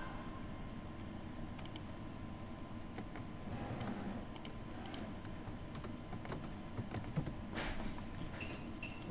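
Computer keyboard keystrokes and mouse clicks, quiet and irregular, with several clicks in quick succession about 7 to 8 seconds in.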